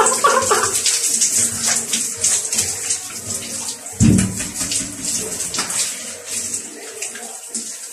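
Overhead shower head spraying water in a steady hiss that splashes down. A sudden dull thump about four seconds in.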